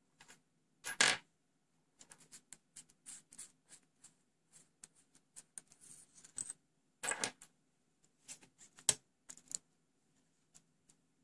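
Metal parts of a soldering iron handle being unscrewed and pulled apart by hand: light scattered clicks and scrapes of the tip, sleeve and threaded nut, with louder rattles about a second in and around seven seconds, and a sharp click near nine seconds.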